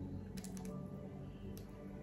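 Soft background music with a steady low bed. A few faint clicks about half a second in and once more near the end, from biting into a large, soft oatmeal cream pie cookie.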